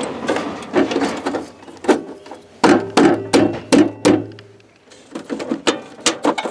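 A string of irregular sharp clicks and knocks as a trailer's power-cord plug is worked into the outlet of a metal campground electrical pedestal and the pedestal's metal cover is handled.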